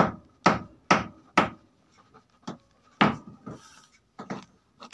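Hammering from building work next door: sharp knocks at a steady two a second that break off after about a second and a half into a few scattered, lighter knocks.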